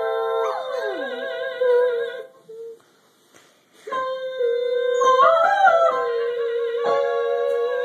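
A woman singing long held vocal warm-up notes with vibrato, with a long-haired dachshund howling along in sliding pitches: a falling howl about half a second in and a rising-and-falling one about five seconds in. The notes break off for about a second and a half in the middle.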